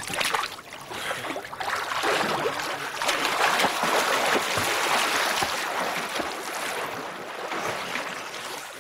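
Water splashing and churning around a swimmer pushing through a lake on an inflated goatskin float. The splashing builds a couple of seconds in, is loudest through the middle, and eases near the end.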